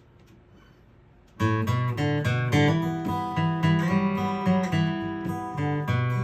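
Near silence, then about a second and a half in an acoustic guitar starts strumming chords: the instrumental introduction to a song.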